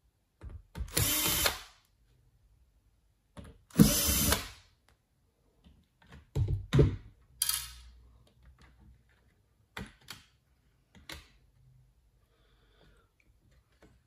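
Cordless drill-driver running in a few short bursts, two of about a second and one brief one, as it backs out the small screws of a laptop's mSATA SSD bracket. This is followed by a few light clicks and knocks as the bracket is handled.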